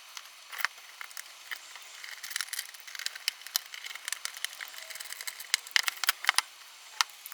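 Scattered light clicks, taps and rattles of computer parts and cables being handled, with a few sharper clicks.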